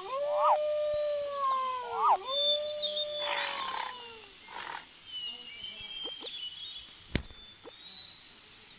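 Animal calls: several long pitched cries that rise and fall, quick sharp chirps, and high thin bird-like whistles, with a short rushing burst about three seconds in and a sharp click near the end.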